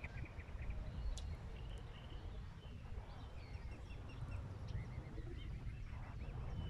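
Mute swan cygnets peeping: repeated short, thin chirps in little runs, over a steady low rumble.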